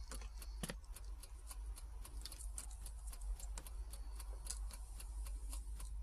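Clockwork kitchen timer, salvaged from an old cooking appliance, ticking rapidly and evenly as it runs down. It is the timer that switches off the soldering iron so it is not left on.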